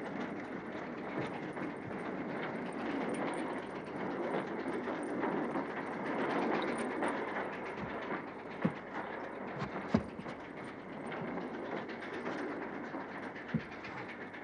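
Steady noise of a railway carriage, with a few light knocks about nine, ten and thirteen seconds in.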